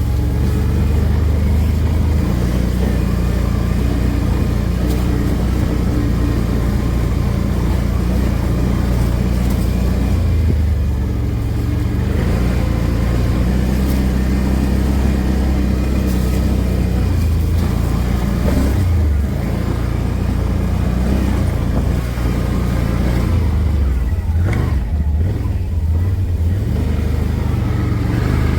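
A small engine running while riding, its pitch shifting now and then with the throttle, with rough wind noise on the microphone.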